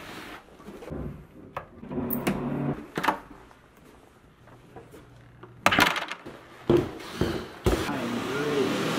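Rustling, clicks and knocks of a handheld camera being carried around a room, with a few sharper knocks about a second apart in the second half.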